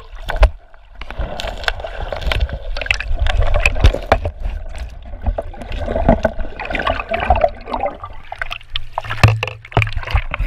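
Muffled underwater rush and gurgle of river current heard by a submerged GoPro in a shallow, rocky river, with frequent sharp clicks and knocks and a low rumble throughout. Near the end it comes up into splashing at the surface.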